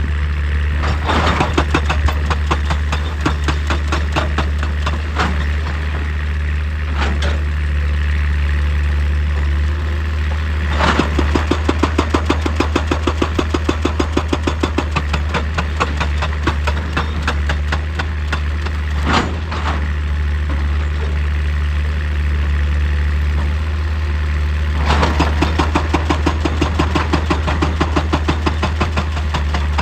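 Excavator's diesel engine running with a steady low drone, overlaid with a fast, even pounding that grows stronger for several seconds about a third of the way in and again near the end, with a few sharp single knocks.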